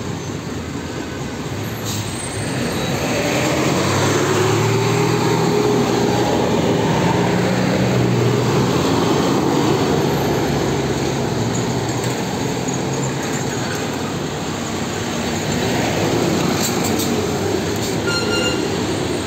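Large buses' engines running close by as they crawl past in heavy traffic. The rumble is loudest through the middle, with engine pitch drifting up and down over a wash of road traffic noise.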